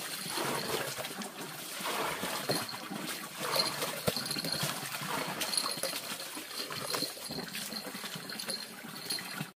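Water splashing and trickling irregularly as vegetable plants are watered by hand.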